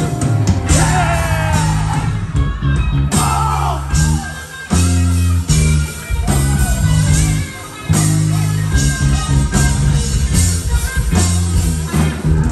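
Rock band playing live: distorted guitars and bass chug through a heavy riff with drums, stopping short twice and slamming back in, with a voice over the top.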